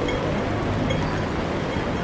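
Busy city street ambience: steady traffic noise with a low rumble, and voices of passers-by in the background.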